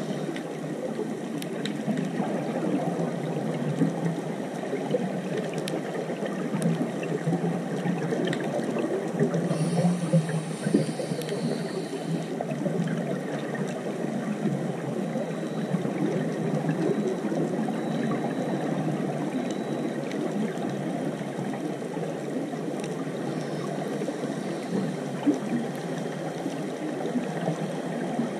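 Underwater ambience picked up by a GoPro in its waterproof housing resting on a coral reef: a steady, muffled watery rushing noise with faint crackles. There are a few louder moments around ten seconds in.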